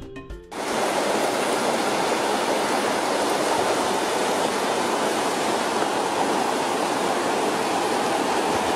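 Steady rush of river water running over rock ledges and between pools, beginning about half a second in as the music cuts off.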